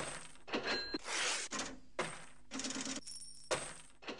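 Coins dropping and clinking: about seven short, separate jingles spread over four seconds, some with a brief metallic ring.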